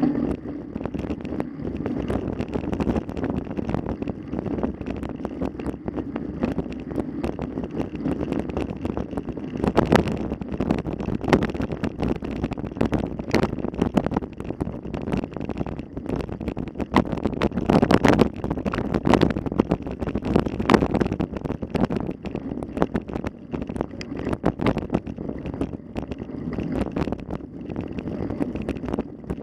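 Wind buffeting the microphone, with frequent rattling clicks and knocks throughout and louder stretches about ten seconds in and again around eighteen to twenty seconds.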